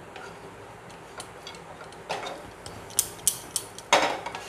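A spatula stirring and tossing flattened rice (chira pulao) in a frying pan as it fries. It makes scattered light ticks and short scrapes against the pan, with a longer, louder scrape near the end.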